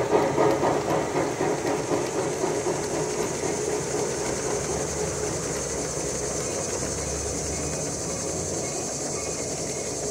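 G scale model freight train rolling along outdoor track as its cars pass close by. The sound is louder at first, as the locomotive pulls away, then settles into a steady rolling after a few seconds.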